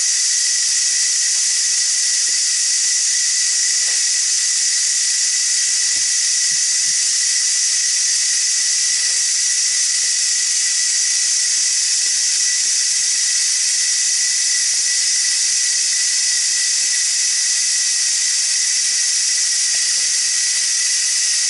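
Instant Pot pressure cooker venting steam through its pressure release valve (a quick release at the end of pressure cooking): a loud, steady hiss with a thin whistling tone running through it.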